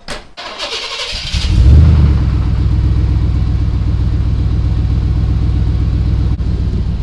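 A door thud, then a Chevy OBS Z71 pickup's V8 cranks on the starter for about a second, catches with a brief flare in revs and settles into a steady idle. It exhales through a freshly welded-in Borla XR1 muffler with the catalytic converters still in place, and sounds a whole lot quieter.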